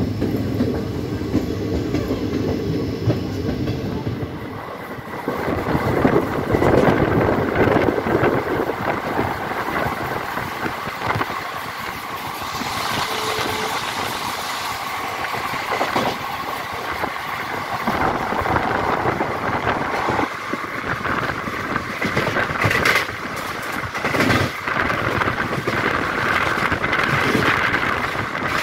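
Passenger train running along the track, heard from a carriage window: a continuous rush of wheel and wind noise with a few sharp knocks. A steady low hum runs through the first few seconds.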